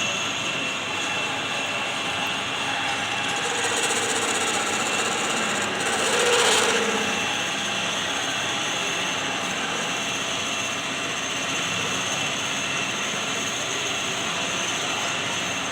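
Lathe running with a steady machine noise and a thin, steady high whine. There is a brief louder swell about six seconds in.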